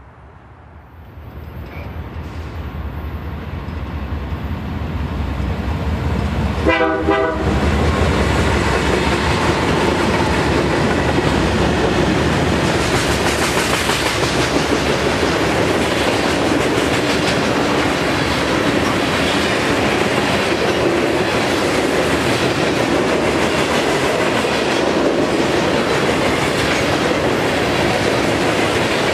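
BNSF freight train approaching, its rumble growing louder over the first several seconds, with a short horn blast about seven seconds in. Then a long string of covered hopper cars rolls past close by, a steady loud rumble of wheels on rails.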